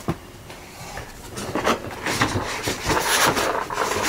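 Cardboard box and packaging inserts being handled, with a couple of light knocks at the start and then dense rustling and scraping of cardboard from about a second and a half in.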